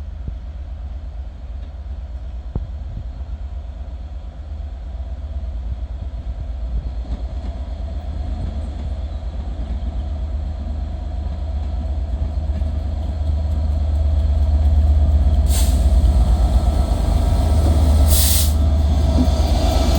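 A train rumbling at a station, its deep running sound growing louder in the second half. Two short hisses cut through near the end.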